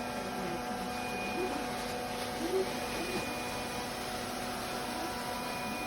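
Lefant M1 robot vacuum running, a steady motor hum and whine over the rush of its suction.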